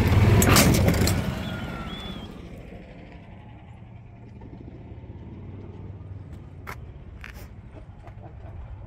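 A loud burst of noise that dies away over about two seconds, then the low steady rumble of a car with a few sharp clicks.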